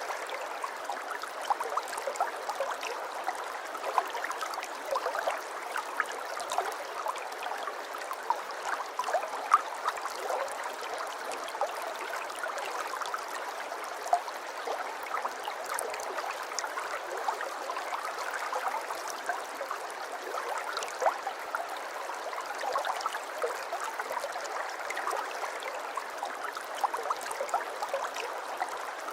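River water flowing, a steady babbling and gurgling with many small splashes and droplets.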